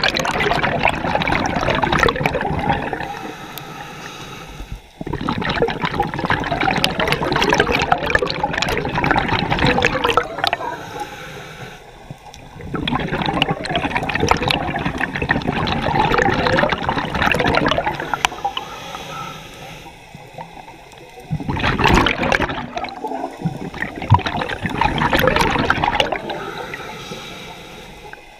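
Scuba regulator breathing heard underwater: each exhalation sends out a long, loud gurgling stream of bubbles lasting several seconds, returning about every eight seconds, with quieter stretches between for the in-breaths.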